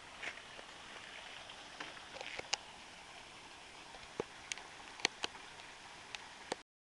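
Steady outdoor hiss with a dozen or so sharp clicks and taps scattered through it, cutting off abruptly near the end.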